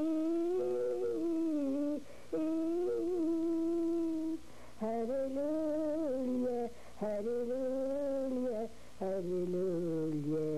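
An elderly woman singing an Arabic hymn to the Virgin Mary, unaccompanied. She sings long wavering held notes in phrases of about two seconds, with short breaks between them. A second, lower voice joins briefly near the end.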